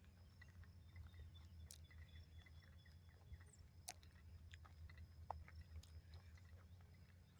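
Near silence: a faint steady low hum with a few faint scattered ticks.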